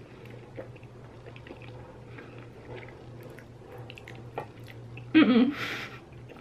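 Wet chewing and small sucking mouth sounds of eating fettuccine in a thick creamy cheese sauce, with a brief loud muffled hum and slurp about five seconds in.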